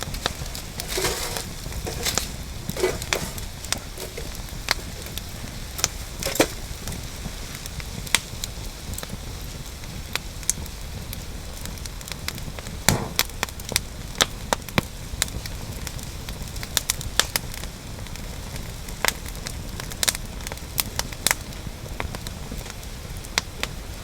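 Wood campfire crackling, with irregular sharp pops scattered throughout over a steady low rush, and a few fuller knocks in the first seven seconds and again about halfway through.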